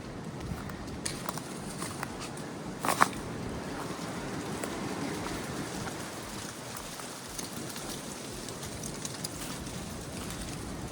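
Hiker's footsteps on a trail, scattered crunches and snaps with a sharper snap about three seconds in, over a steady rushing background.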